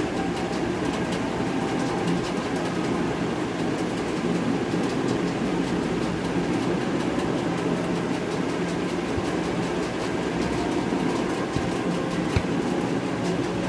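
Steady droning background noise that doesn't change, with a single short knock near the end.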